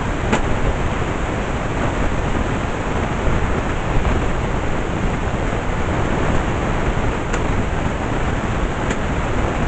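Vacuum cleaner running steadily, a loud even rushing of air, with a few faint clicks as things knock against the nozzle.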